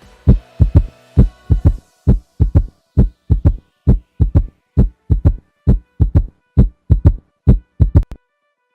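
Heartbeat as heard on auscultation: a steady lub-dub, each beat two low thumps close together, about 65 to 70 beats a minute. It cuts off abruptly near the end.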